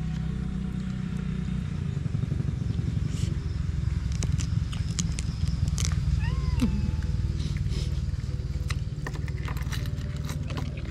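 A cat meowing once about six seconds in, over a steady low rumble, with sharp clicks and slurps as crab shell is cracked and picked at with the fingers.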